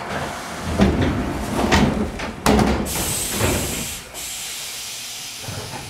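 Train car's sliding passenger door closing: a few knocks, the loudest a sudden thud about two and a half seconds in as the door shuts, then about a second of hissing air.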